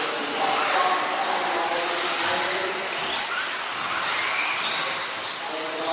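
Several 4WD 1/10 off-road RC buggies racing, their electric motors whining and rising and falling in pitch over and over as they accelerate and brake around the track.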